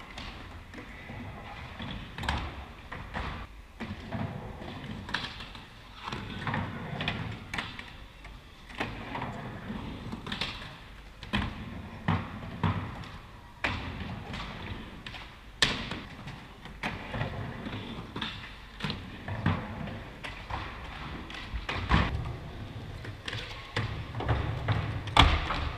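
Skateboards rolling and landing on ramps: an irregular series of thuds and sharp board slaps and clacks over the rolling noise of the wheels, with the loudest hits near the end.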